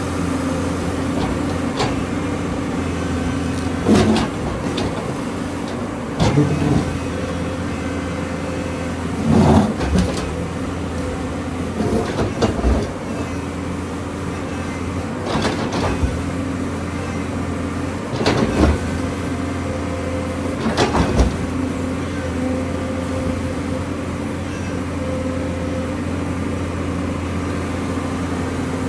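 Excavator's diesel engine running steadily under work, with loud knocks and rattles every two to three seconds as rock is struck and moved.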